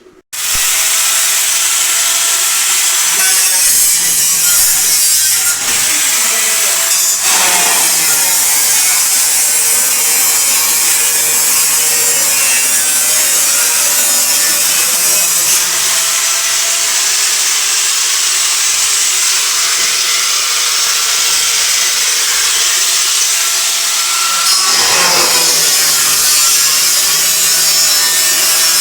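Angle grinder cutting metal: a loud, steady grinding hiss with a whine. It starts abruptly right at the beginning and keeps going without a break.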